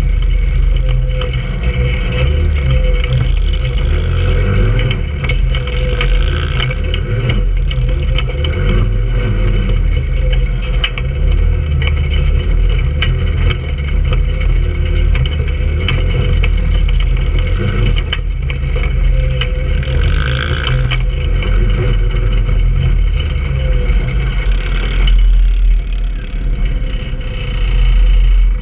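Trailmaster 150 go-kart's 150cc single-cylinder four-stroke engine running steadily as the kart drives over rough, rutted dirt, with many short knocks and rattles.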